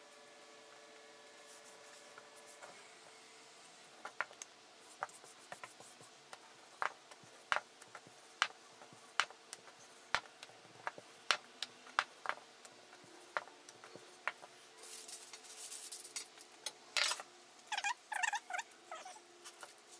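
Light kitchen work while small rounds of dough are rolled out: a rolling pin knocks sharply on the board at irregular intervals, about once a second, starting about four seconds in. Near the end there is a rustle, then a quick cluster of clicks and scrapes.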